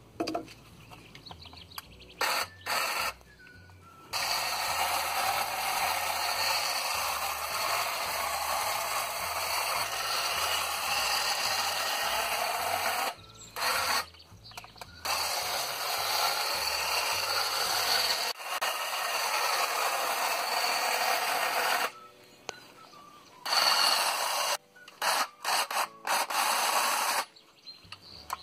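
Gardena EasyCut Li-18/50 18-volt cordless hedge trimmer running as it cuts a conifer hedge. It is switched on in two short bursts at first, then runs for stretches of several seconds, stopping briefly a few times.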